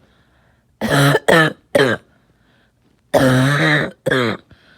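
A person coughing in two fits: three quick coughs about a second in, then a longer, drawn-out cough followed by a short one a little past three seconds.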